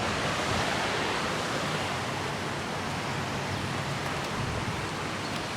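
Water rushing and churning out of a dam's outlet into the pool below, a steady rushing noise.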